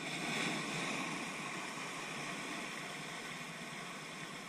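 Ocean surf washing in among shoreline rocks: the rush of water swells about half a second in, then settles into a steady wash.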